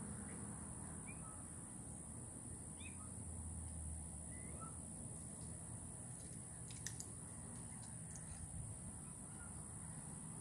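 Faint outdoor ambience: a steady high hiss with a few faint, short, high calls scattered through it, and a brief sharp click about seven seconds in.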